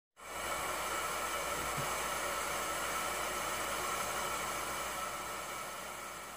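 Steady static hiss, a white-noise sound effect, starting to fade out in the last second or so.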